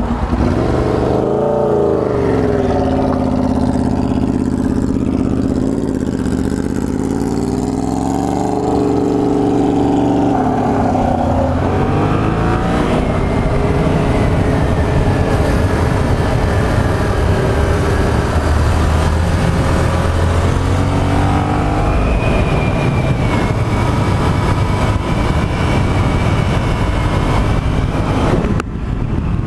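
Yamaha FZ-07 motorcycle's parallel-twin engine revving up and easing off twice in the first ten seconds or so, then running steadily under way with wind rush over it. The sound drops briefly near the end.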